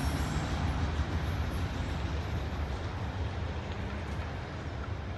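Freight train rolling past: a steady low rumble of wheels on rail that slowly eases off.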